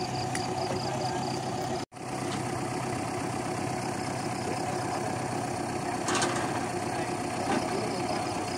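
Belarus farm tractor's diesel engine idling steadily while the tractor stands stuck. There is a brief dropout in the sound about two seconds in and a short knock about six seconds in.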